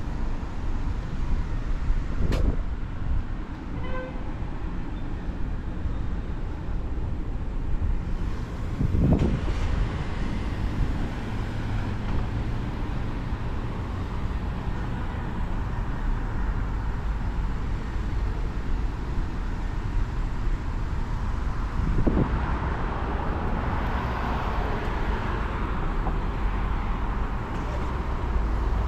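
Road traffic going by on a town street: a steady low rumble of car engines and tyres, with a short beep about four seconds in. There are a couple of dull thumps, and a vehicle passes near the end.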